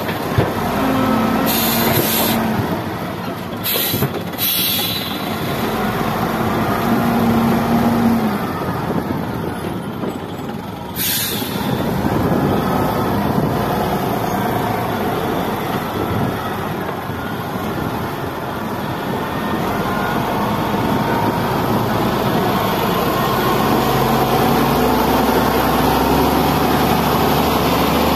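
XGMA wheel loader's diesel engine running hard as the machine works: lifting and dumping its bucket, then driving back to the pile. Several short hisses cut through during the first dozen seconds, and the engine grows louder near the end as the bucket pushes into the dirt.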